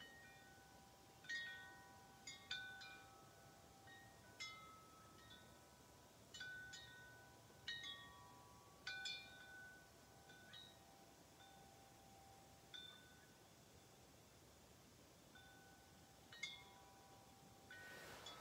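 Wind chimes ringing faintly: irregular clusters of struck notes every second or two, each note ringing on, with a quieter spell partway through. A soft rushing noise comes in near the end.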